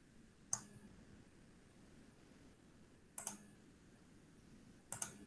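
Computer mouse clicking: a single click about half a second in, then two quick double-clicks about three and five seconds in, over faint room hiss.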